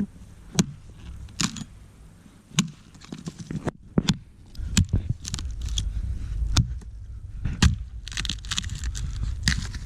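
An axe chopping into a tree stump for firewood: a series of sharp, irregularly spaced strikes, about one a second, with a crackling rustle of wood near the end.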